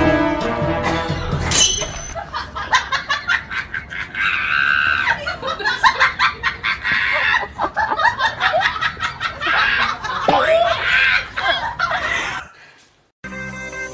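A man and a woman laughing hard in quick, breathy bursts for about ten seconds. This follows a short stretch of background music, and new music starts just before the end.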